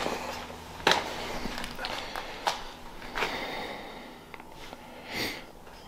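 A few light knocks and clicks as car suspension parts are handled on a garage floor, then a short sniff near the end.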